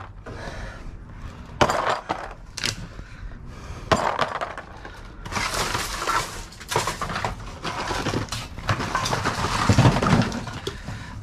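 Used metal oil filters clanking and rattling against each other as they are picked out of a dumpster: a few separate sharp knocks, then a longer stretch of clatter.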